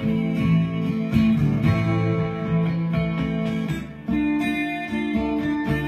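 Electric guitar played with a clean tone, strumming chords in a steady rhythm; the sound dips briefly and changes to a new chord about four seconds in.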